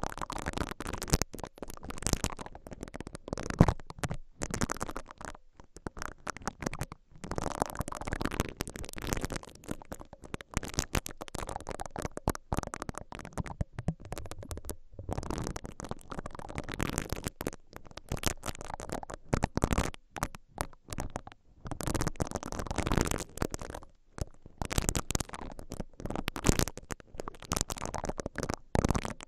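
Silicone-bristled ear pick brushed slowly into and around the grilles of a stereo recorder's two microphone capsules, giving close, rumbling scratches in uneven strokes with short pauses between them.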